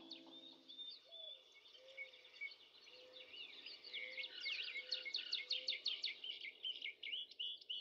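Wild birds chirping and singing, with quick runs of high chirps in the middle and a faint low note repeated several times underneath. A music track fades out about a second in.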